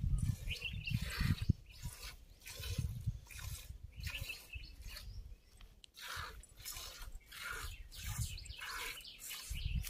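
Hand-milking a cow: jets of milk squirting into a steel pot, a short hiss with each squeeze repeating at a steady pace, over a low rumble.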